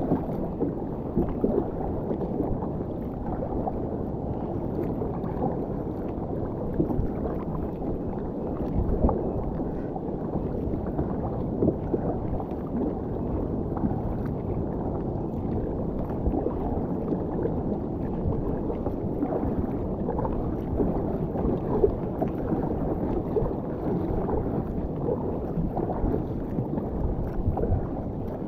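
Water sloshing and gurgling against a sit-on-top kayak's hull as it is paddled across a choppy sea, with irregular small splashes and knocks from the paddle.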